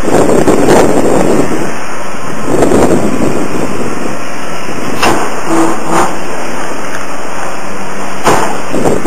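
Excavator demolishing a building: a loud, rough rushing noise with a few sharp knocks of debris, about five seconds in, a second later and near the end.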